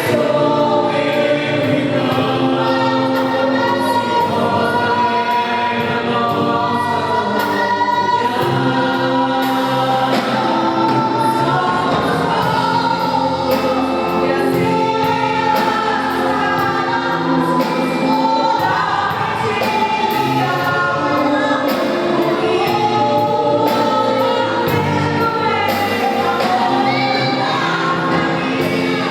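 Gospel worship song: several voices singing together in Portuguese with steady instrumental accompaniment.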